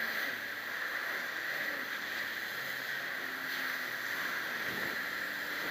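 Jet ski running across choppy water: a low engine drone whose pitch drifts slightly, under a steady rush of wind and water noise.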